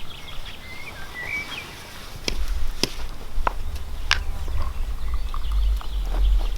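Four sharp clicks, spaced about half a second apart, over a low rumble, with a brief bird chirp before them.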